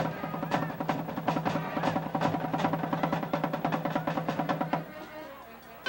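School band percussion section, snare and tenor drums, playing a fast drum cadence that stops about five seconds in.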